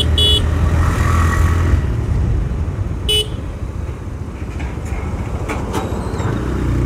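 TVS Raider 125 motorcycle riding in traffic, a steady low rumble of engine and wind on the handlebar-mounted phone's microphone as it slows down. A horn gives a last short beep at the start and one more about three seconds in.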